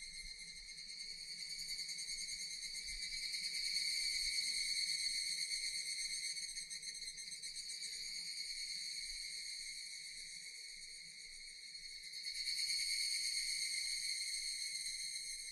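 Japanese cicadas singing in a continuous, high-pitched, buzzing drone. It swells louder a few seconds in, eases off, then swells again near the end.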